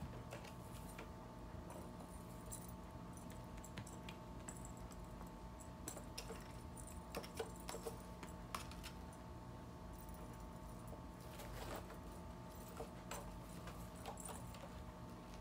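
Faint, scattered jingling and light clicks from a feather wand cat toy and a cat pouncing on it over carpet, over a steady low background hum.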